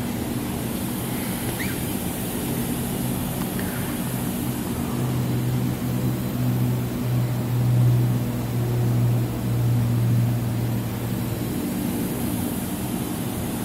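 Steady low machinery hum with a high hiss over it; the low tone swells louder for several seconds in the middle and then settles again.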